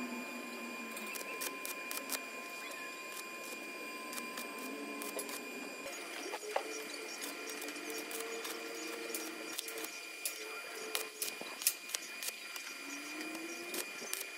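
Arc welder tack-welding a square hollow steel window frame: the arc sizzles and crackles in irregular short spells, with more of it in the second half.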